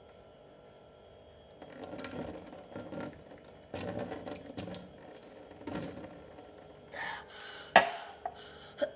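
Cold water poured from a metal cup over a face, splashing into a stainless steel sink in several bursts. Near the end come sharp gasps at the cold and a sharp knock, the loudest sound.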